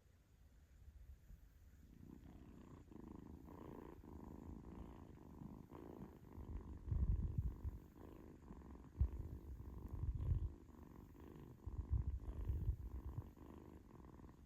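Kitten purring close to the microphone, starting about two seconds in and swelling in loud, low pulses every two to three seconds, with faint ticks over it.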